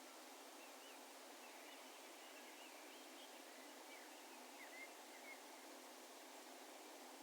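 Faint, distant birds giving a dozen or so short chirping calls over a steady background hiss of outdoor ambience; the calls thin out after about five seconds.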